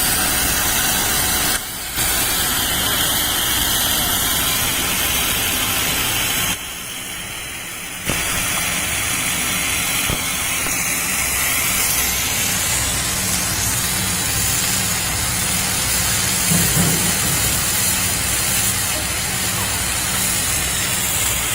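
Snack-food extrusion production line running: steady machine noise with a hiss over a low rumble. It drops away briefly twice, about a second and a half in and again for a second or two around six and a half seconds in.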